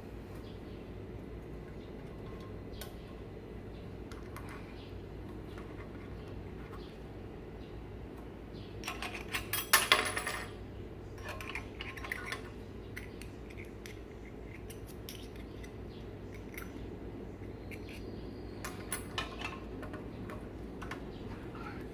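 Light metallic clinks and clatter of small metal pieces being handled, a short burst about ten seconds in and a few more clinks near the end, over a steady low background noise.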